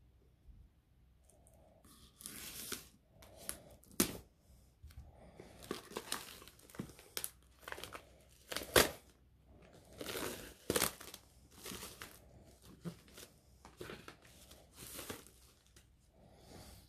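Plastic shrink-wrap being torn and peeled off a cardboard box set: irregular crinkling rips with a few sharp cracks, the loudest about halfway through.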